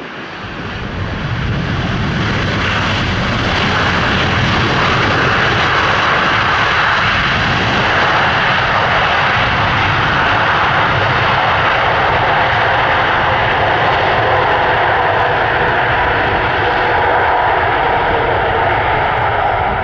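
Jet engine noise of a Jetstar Boeing 787-8 landing, its Rolls-Royce Trent 1000 turbofans running loud. The noise swells over the first two seconds, then holds steady with a faint whine in it.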